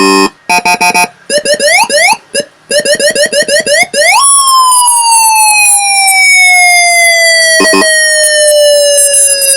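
Programmed electronic police escort siren running through its tone patterns: about four seconds of short beeps and quick rising chirps, then a fast rise into one long wail that slowly falls in pitch.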